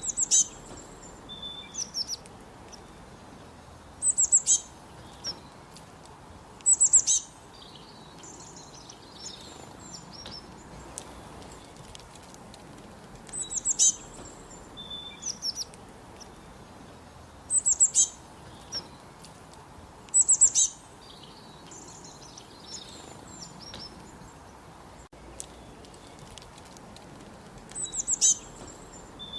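Northern cardinal singing: short phrases of a few quick, steeply down-slurred whistles, repeated every three to four seconds, with fainter softer notes in between.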